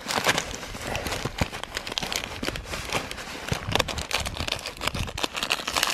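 Hands rummaging through a hiking backpack: irregular rustling of pack fabric and gear, with crinkling of snack packaging.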